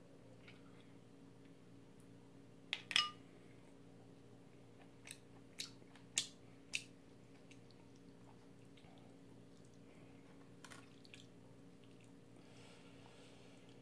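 Quiet eating sounds over a bowl of jjamppong: chewing, with a scattering of sharp clicks and smacks, the loudest about three seconds in. A soft noisy stretch follows near the end as noodles are lifted with chopsticks.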